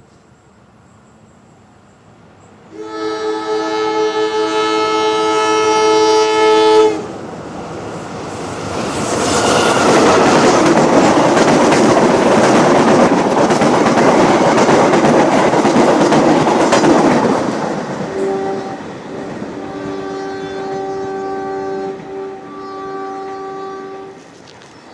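A diesel locomotive hauling a train sounds a long blast on its air horn, then rushes past with the loud rumble and clatter of engine and wheels on the rails. As it moves off, it sounds several shorter horn blasts.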